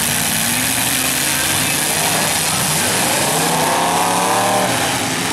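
Demolition derby cars' engines running together in a loud, dense din, with one engine revving up about three seconds in, rising in pitch and then falling off near the end.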